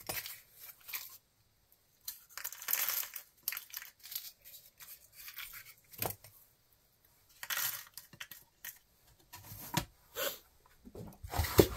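Small electronic parts being handled at a workbench: scattered light clicks, taps and rustles as transistors are picked up with tweezers and sorted into a small foam-core drawer, with a louder clink near the end.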